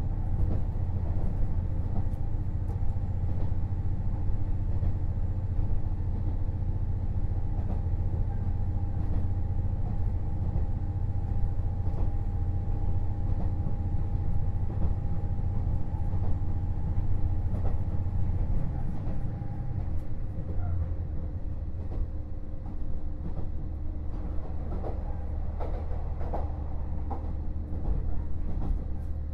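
KiHa 48 diesel railcar running along the line, its diesel engine giving a steady low hum with a whine above it. About twenty seconds in the engine note drops away and the higher whine stops, and a few light clicks follow near the end.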